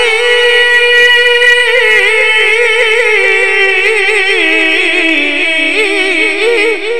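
A man singing a Punjabi naat in a high register, drawing out one long melismatic phrase with quick quavering turns. The pitch steps down about two-thirds of the way through.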